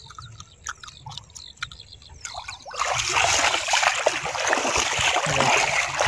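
Splashing of bare feet wading quickly through shallow river water, with scattered small drips and splashes at first and turning into loud, continuous splashing and sloshing about three seconds in.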